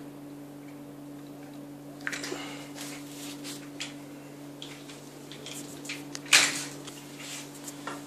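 Handling noise from a baby cradle's tubular frame being moved and fitted: scattered knocks, clicks and rustles beginning about two seconds in, with one loud knock about six seconds in. A steady low hum runs underneath.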